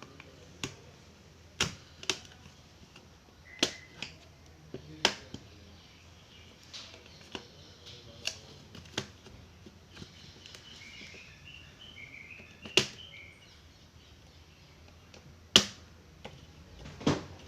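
Irregular sharp clicks and knocks of small hard parts and tools, about a dozen spread unevenly, the loudest near the end, as a laptop's back panel and screws are worked on.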